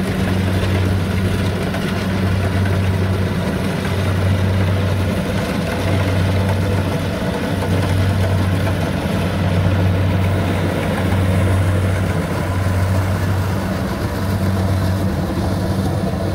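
Engine running steadily, a low hum that wavers slightly without revving up or down.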